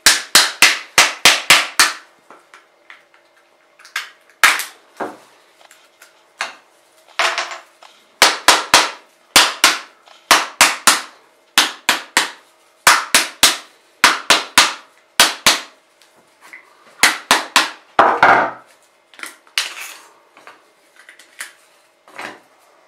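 Hammer knocking on a coconut's hard shell to crack it, in quick runs of several sharp blows, about three to four a second, with short pauses between runs. The knocks grow fainter and sparser near the end.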